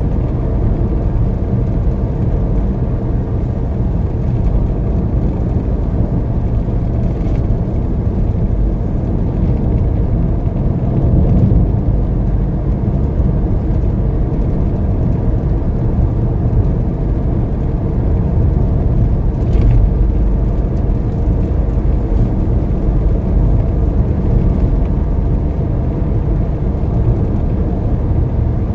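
Road and engine noise heard from inside a moving car's cabin: a steady low rumble of tyres and engine while cruising.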